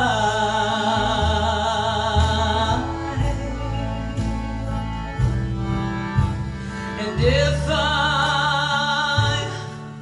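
A recorded song playing through Western Electric 10A-type horn loudspeakers with 18-inch woofers. A long held melody note with vibrato rings over bass and guitar accompaniment, fades back for a few seconds, and a second held note slides in and rises at about seven seconds.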